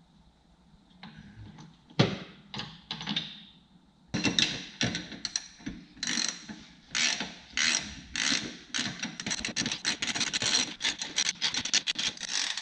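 Hand ratchet wrench clicking as it drives a differential mount bolt into a Steeda aluminum diff bushing. A few scattered clicks come first, then from about four seconds in a steady run of back-and-forth ratchet strokes, roughly two a second.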